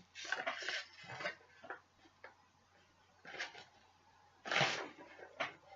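Scattered faint rustles and clicks of a cube box and its packaging being handled and pried open, with one louder rustle about four and a half seconds in.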